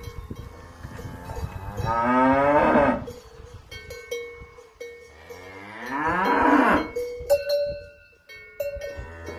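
Cows mooing twice, each a long call, over the ringing and clanking of cowbells on the cows' neck straps as they move.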